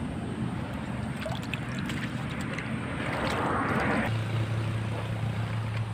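Water splashing for about a second, a little after three seconds in, over a steady low hum that gets louder just after the splash, with a few small clicks.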